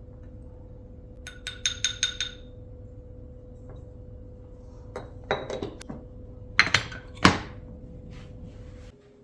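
Dishes clinking and clattering as they are handled and set down: a quick run of ringing clinks about a second in, then louder clatters twice toward the end. A steady low hum runs underneath.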